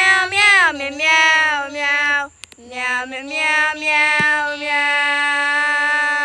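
Voices singing "meow" over and over in a tune: several short sung syllables, then one long held note from about halfway through.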